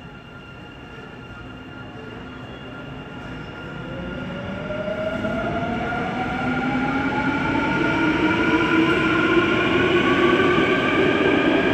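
Busan Subway Line 2 train with Woojin IGBT-VVVF traction equipment approaching through the tunnel, growing steadily louder as it nears. From about four seconds in, a whine climbs in pitch over the rumble of the wheels, with steady high tones above it.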